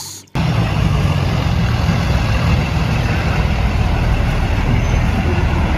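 School bus engine running steadily with a low, even drone, cutting in abruptly just after the start.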